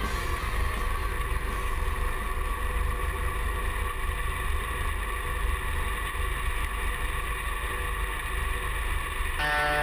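Heavy diesel harvest machinery running steadily with a deep, even rumble and a constant hum, with some wind on the microphone.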